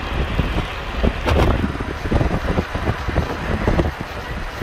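Wind gusting and buffeting on the microphone aboard a moving Matterhorn Gotthard Bahn narrow-gauge train, over the low rumble of the train running.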